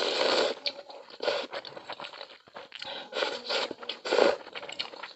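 Close-miked eating sounds from someone eating milk-broth malatang: a quick run of short, wet mouth noises as the food is chewed and drawn into the mouth.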